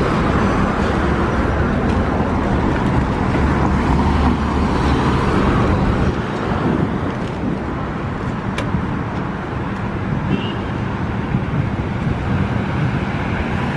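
Road traffic: cars running past on a busy city street, a steady rumble of engines and tyres, a little louder in the first half.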